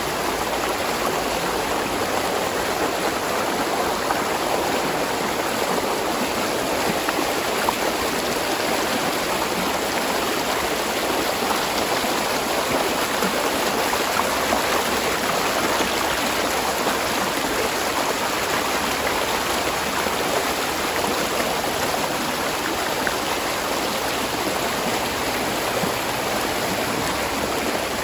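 Spring water running and splashing over rocks in a steady, unbroken rush.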